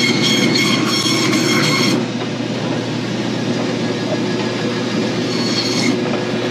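Meat band saw running with a steady motor hum as it cuts through beef ribs. For the first two seconds the blade gives a high whine as it passes through the rib bones, and it whines again briefly near the end.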